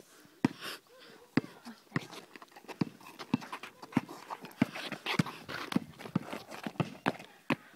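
Basketball being dribbled on an asphalt court: a steady run of sharp bounces, just under two a second, with shoe scuffs and footsteps in between as the players move.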